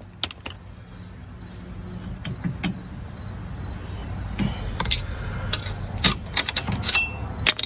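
Impact wrench running slowly as a wheel-hub bolt threads in, getting louder, then hammering in a few sharp impacts near the end as the bolt seats. Crickets chirp steadily in the background.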